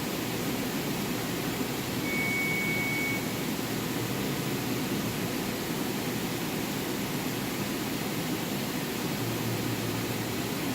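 Wire EDM machine running: a steady hum and hiss, with a brief thin high tone about two seconds in.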